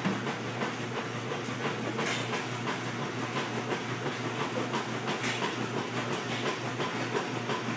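Home treadmill running, its motor humming steadily and its belt clattering in an even, repeating rhythm, with small scattered clicks.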